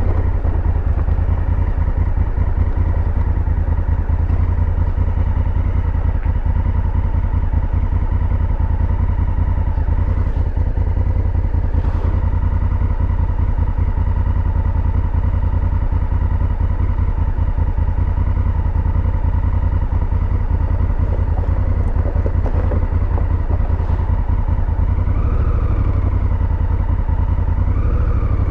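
Honda Africa Twin's parallel-twin engine running steadily at low revs, an even fast pulsing from the exhaust.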